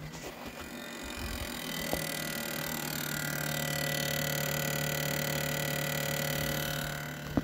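Samsung NE58H9970WS induction cooktop's left-side module cooling fan running with a steady, really noisy whir under a low hum. It is the noisy one of the cooktop's fans, still to be fixed. It grows louder about two seconds in and eases off near the end.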